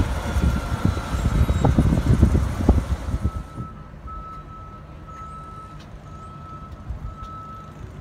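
Vehicle rumbling with knocks for about three seconds. After that, a vehicle's electronic warning beeper sounds a single-pitch beep over and over, a little faster than once a second.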